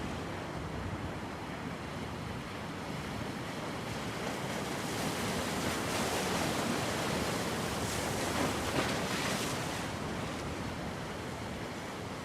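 Black Sea waves washing onto the shore, a steady surf hiss that swells a little midway, with some wind on the microphone.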